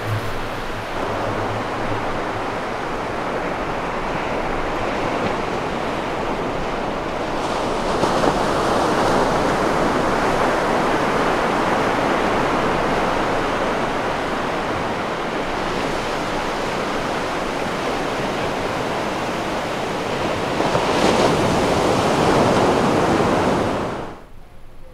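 Ocean surf washing onto a sandy beach: a steady rush of breaking waves that swells louder about eight seconds in and again near the end, then drops away suddenly.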